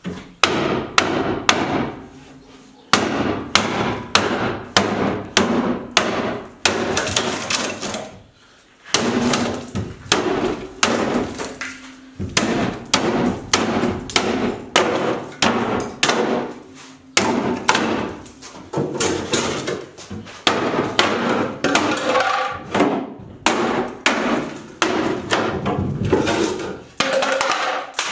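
A hammer battering the wooden dividers of a bookcase to knock them out, a fast series of sharp blows about two a second with short pauses between the runs, wood splintering and pieces coming loose.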